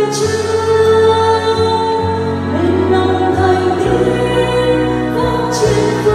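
Church choir, mostly women's voices, singing a Vietnamese Catholic hymn in long held notes that move to a new chord every second or two.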